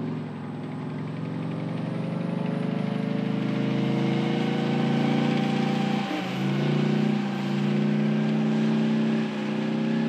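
Type 90 tank's two-stroke diesel engine running under load as the tank drives along. The engine note swells over the first few seconds, then holds steady apart from two short dips, about six and nine seconds in.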